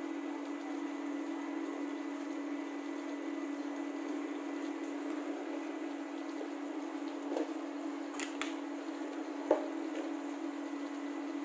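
Steady low hum of kitchen background noise, with a few light clicks about eight seconds in and a sharper knock about nine and a half seconds in, from spices being added to a pressure cooker.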